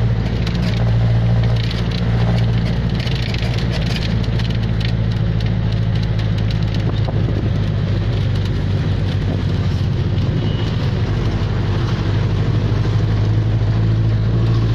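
Jeepney's diesel engine running steadily under way, heard from inside the passenger cabin as a loud, even low drone, with road noise and scattered small rattles.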